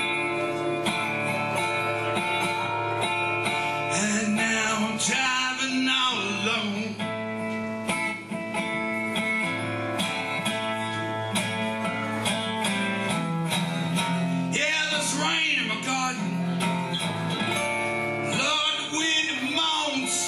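Wood-bodied resonator guitar with a round metal cover plate, strummed and picked in an instrumental passage without vocals.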